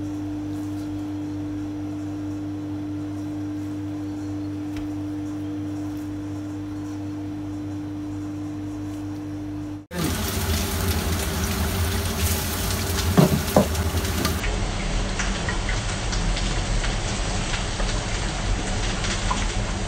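A steady, even hum for the first half. Then, from a sudden change about halfway through, oil sizzles loudly as chả giò (Vietnamese spring rolls) deep-fry in a steel pot, with a couple of clinks of the wire skimmer a few seconds later.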